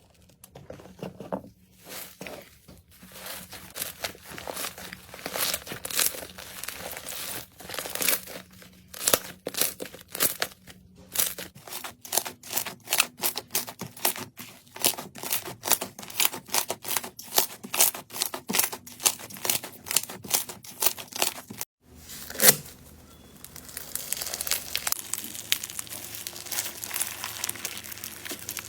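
Slime being squeezed and played with: a rapid series of sharp crackling pops and clicks. After a brief cut, a second slime clip gives a denser, continuous crinkly crackle.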